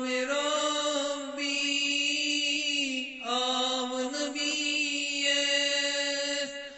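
A solo voice chanting devotional qalaam verse in long held notes, in two phrases of about three seconds each with a short break between them.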